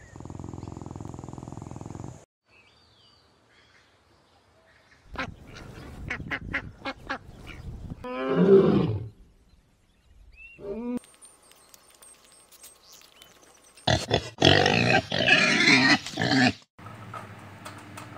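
Lion roaring in bouts: a short call about eight seconds in and a louder, longer run of roaring from about fourteen to sixteen and a half seconds, with quieter clicks between.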